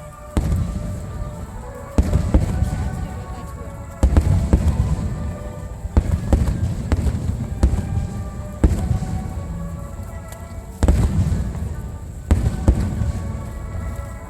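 Fireworks display: aerial shells bursting in a string of sharp booms, each a second or two after the last, with crackling tails. Music plays underneath.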